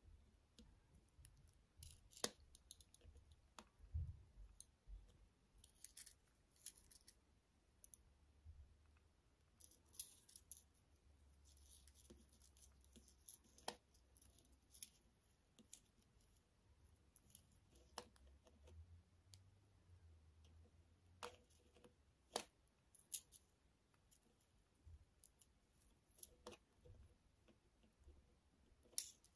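Faint, scattered clicks and light scratching of seed beads on wire, handled and twisted by hand.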